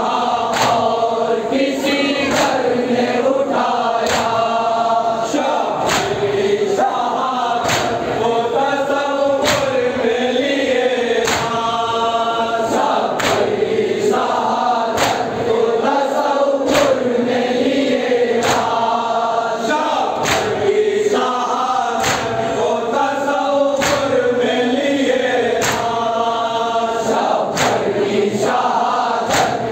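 A group of men chanting a nauha in unison behind a lead reciter on a microphone, with matam, hands beating on chests together, striking in a steady rhythm about once a second.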